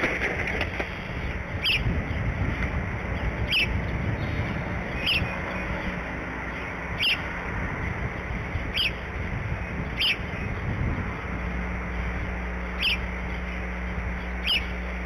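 A bird chirping short single high notes, eight in all, about every one to two seconds, over the rustle of dry grass and sticks being shifted in a bald eagle nest; the rustling stops about eleven seconds in.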